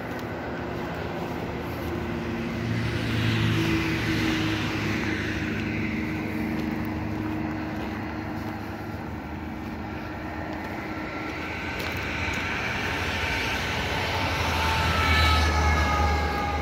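Road traffic passing by: two vehicles go past, one about three seconds in and a louder one near the end. Each swells up and drops in pitch as it goes by, over a steady background hum.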